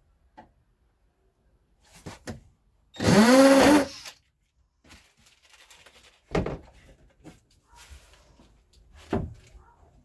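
Cordless drill/driver run once for about a second, its motor pitch rising as it spins up while driving a small screw into a hinge. Several short knocks and clunks of handling wood and tools come before and after it.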